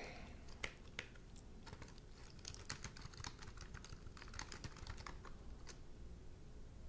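Faint typing on a keyboard: quick, irregular key clicks in uneven runs, stopping near the end.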